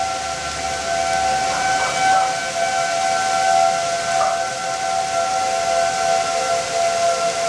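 Outdoor civil defense sirens sounding a tornado warning, holding steady tones over a steady hiss.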